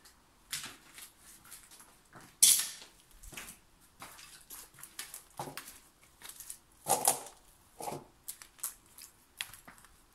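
Irregular crunches, rustles and knocks of a person moving about close to a hand-held camera, with a sharp knock about two and a half seconds in and a heavier crunch near seven seconds.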